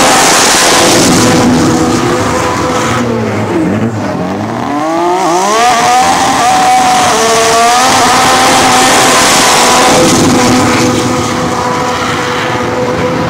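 Tuned Nissan Skyline GT-R drag car doing a burnout: the engine is held at high revs while the tyres spin with a steady hiss. The revs drop and climb again about four seconds in, then hold high once more.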